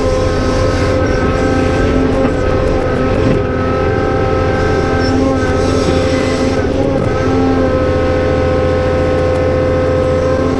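Cat 390F excavator's diesel engine running hard under load, with the hydraulic pump whining. Steady whining tones come and go and shift slightly in pitch as the hydraulic valves are worked.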